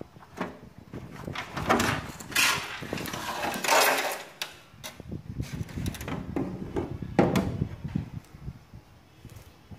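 Plastic back cover of a JVC 21-inch CRT television being pulled off: scraping and knocking of hard plastic, with the longest and loudest scrape between about two and a half and four and a half seconds in.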